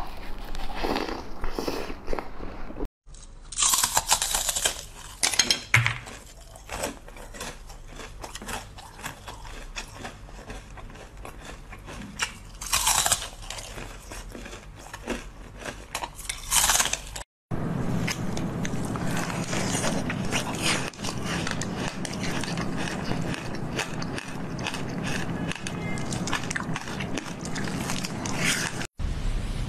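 Close-miked biting, crunching and chewing of frozen treats, in short takes cut together. The crunching is crisp and crackly, densest in the last take.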